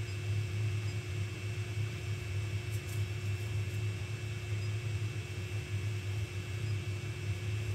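Steady low hum with a faint high whine from a powered-up Elegoo Neptune 4 Pro 3D printer sitting idle, its fans running while the nozzle is held still for Z-offset adjustment.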